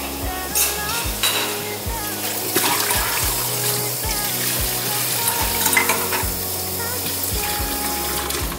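Kitchen tap running into a steel sink as dishes are washed by hand, with a few clinks of cookware being handled. Soft background music with low held bass notes plays under it.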